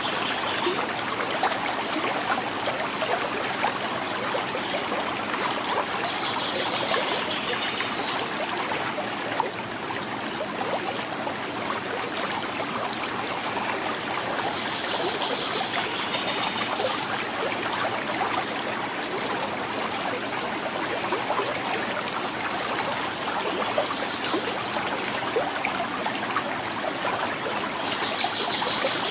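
A quiet river flowing, a steady rush of water with gurgling and trickling.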